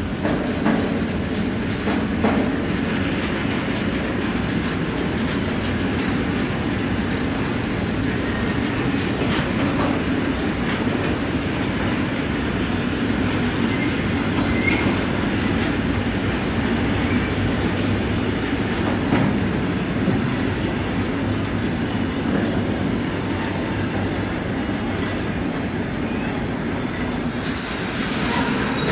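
Freight train of tank wagons rolling past, a steady rumble of wheels on rail with clickety-clack. Near the end a high metallic wheel squeal sets in.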